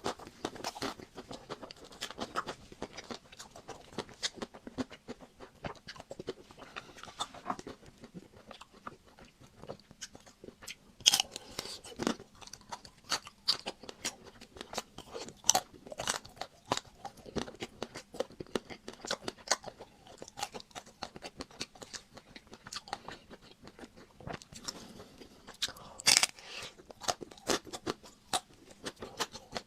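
Biting and chewing a chocolate-coated Magnum ice cream bar: the chocolate shell crackles and crunches in quick, irregular crisp clicks. Louder bites come about eleven seconds in and again near the end.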